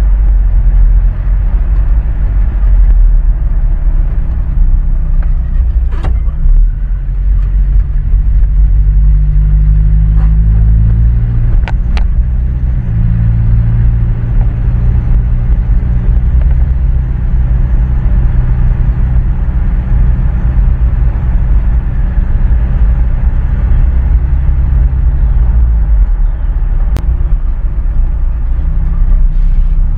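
Pickup truck driving, heard from inside the cab: a steady low engine and road rumble whose engine note steps up and down a few times, with a few short sharp knocks.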